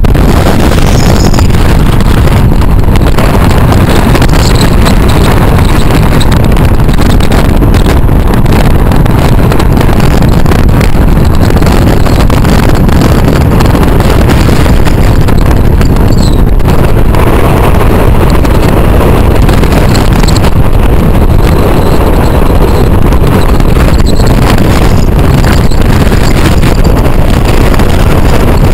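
A car driving along a paved road: a loud, steady rumble of engine, road and wind noise.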